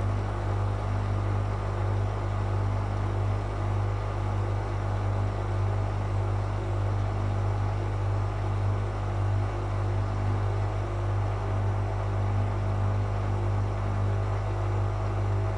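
Whirlpool FL 5065 front-loading washing machine running with its drum turning, a steady low hum with no break or change.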